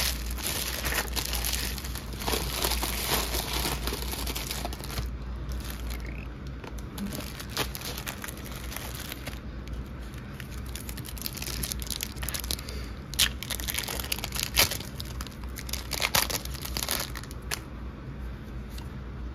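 Foil wrappers of Pokémon trading-card mini booster packs being crumpled and torn open by hand: dense crinkling for the first five seconds, then sparser crinkles with a few sharp crackles. A steady low hum runs underneath.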